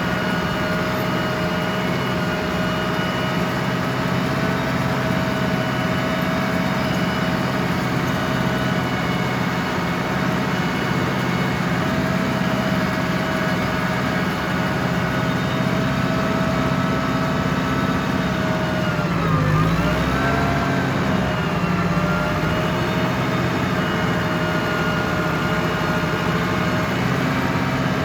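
Ford 6610 tractor's diesel engine running steadily with a steady whine over it. The engine's pitch dips briefly twice, about two-thirds of the way through and again at the very end.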